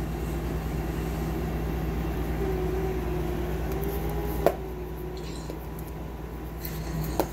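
Steady low background hum, with two sharp clicks as makeup things are handled: one about four and a half seconds in, after which the hum drops a little, and one just before the end.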